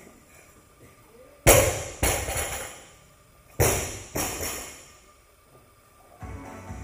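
Loaded barbell with bumper plates dropped from overhead onto the floor: a loud bang, then a bounce about half a second later, with the steel bar rattling and ringing after each hit. A second, similar pair of bangs follows about two seconds later.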